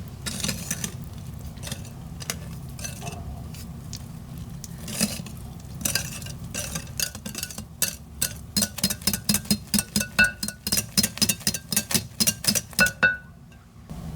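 A utensil clinking against a mixing bowl while ingredients are stirred: scattered knocks at first, then a fast, regular run of about four or five clinks a second that stops shortly before the end.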